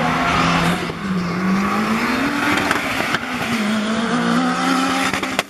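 Drag-racing hatchback accelerating hard down the quarter-mile strip, its engine pitch climbing and dropping back about three times as it shifts up through the gears. The sound cuts off abruptly near the end.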